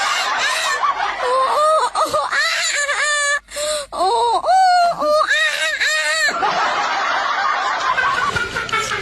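High-pitched laugh-like vocal sounds: a quick string of short notes that rise and fall in pitch, giving way after about six seconds to a rougher, denser stretch.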